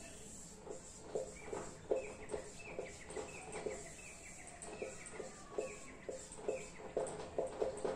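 Marker pen squeaking on a whiteboard in short strokes as small circles are drawn, about two squeaks a second.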